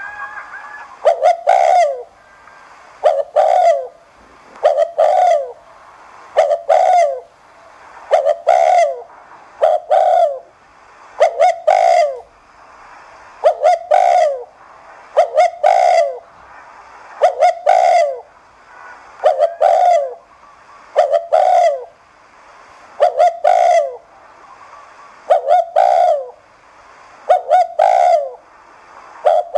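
Spotted dove cooing: short double-noted coos repeated about every two seconds. This is the fast, insistent 'thúc gù' cooing that keepers play to spur other spotted doves into cooing.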